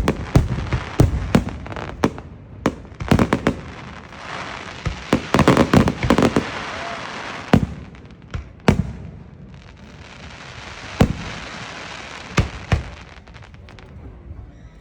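Fireworks going off: a quick run of sharp bangs in the first few seconds, then spells of steady hiss with single loud bangs every second or two, quieter near the end.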